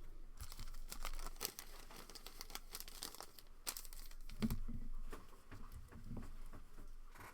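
Foil trading-card pack wrappers crinkling and tearing as packs are ripped open and handled, a dense run of crackles that goes on for most of the stretch.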